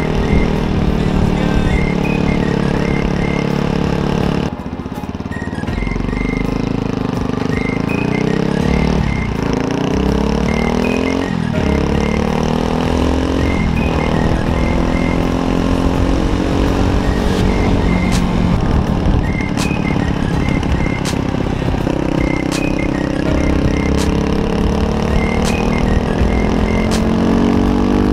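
Beta RR 125 LC single-cylinder enduro engine under riding, its pitch rising and falling over and over as the throttle is worked and the gears change, with a short drop in level about four and a half seconds in.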